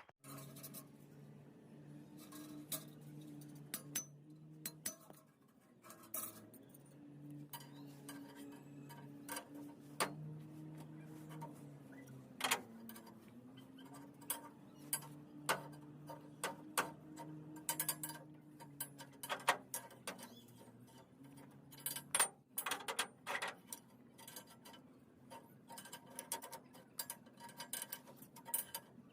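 Light metallic taps and clinks, many of them at irregular intervals, over a steady machine hum that dips in pitch briefly about halfway through.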